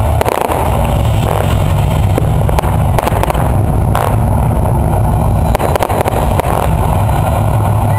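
Fireworks display at its height: a dense barrage of bangs and crackles merging into a continuous low rumble, with sharper cracks about three and four seconds in.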